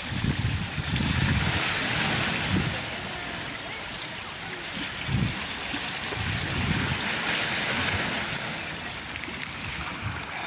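Sea waves washing against rocks, swelling twice, with wind gusting on the microphone.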